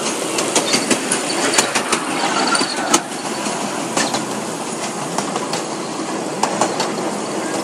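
Miniature ride-on railway carriages running along the track, heard from on board: a steady clatter with irregular sharp clicks from the wheels on the rails.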